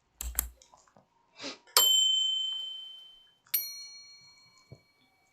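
A couple of sharp clicks, then two bell-like chime strikes, each ringing out and fading over a second or more; the second strike has several tones together.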